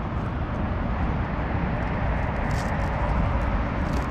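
Steady wind rumble on the microphone with road noise, strongest in the low end, as from an e-bike on the move.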